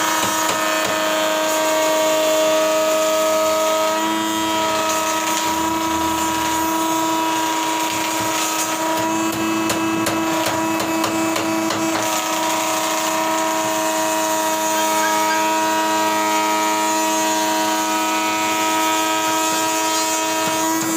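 Electric table planer running: a steady motor whine over a rushing noise, shifting a little now and then.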